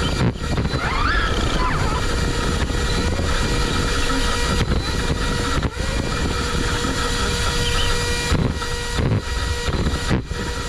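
Brushless-motor RC car (JLB Cheetah chassis) driving: a steady high whine over rushing wind and tyre noise, with a few brief dips and dropouts.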